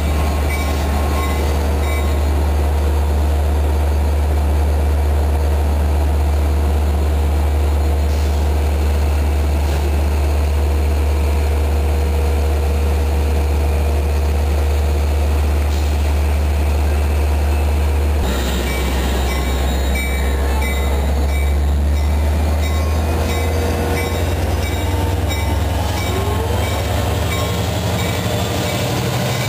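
Long Island Rail Road diesel locomotive passing close at low speed, hauling C3 bilevel coaches, its engine a loud, steady low hum over rolling-stock noise. About two-thirds of the way through the hum drops and the sound changes as the locomotive moves past.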